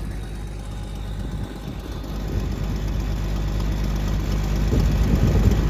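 Combine harvester's diesel engine running just after starting up, getting steadily louder.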